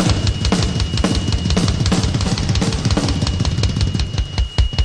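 Live rock band playing an instrumental passage: a drum kit keeps a fast, steady beat of kick, snare and cymbals under bass and electric guitar. A thin, steady high whine sits above the band.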